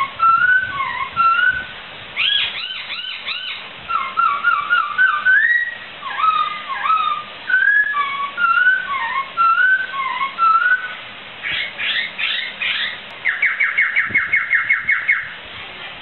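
Poksai laughingthrush singing a varied song of clear whistled phrases that slide up and down in pitch. Near the end comes a fast trill of about five short notes a second.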